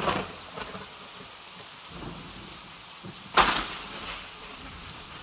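Steady heavy rain, with a sudden crack of thunder a little past halfway that dies away over about a second.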